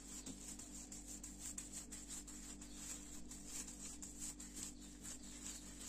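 Faint crinkling and rubbing of a thin plastic bag as fingertips press a raw ground-beef burger patty flat through it: many small irregular rustles over a steady low hum.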